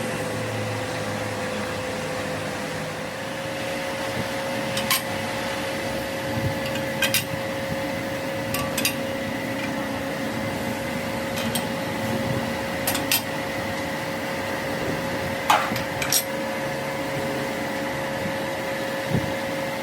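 A workshop machine running with a steady hum, with sharp metallic taps and clinks every second or two.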